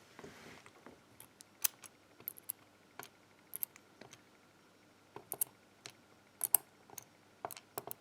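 Small lock pins and springs being set down and arranged on a hard surface, giving light irregular clicks and ticks, with a short soft rustle at the start.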